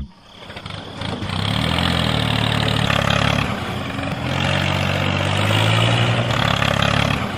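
Tractor engine running and revving as the tractor pulls through mud. The engine builds up about a second in, eases off briefly around the middle, then rises again.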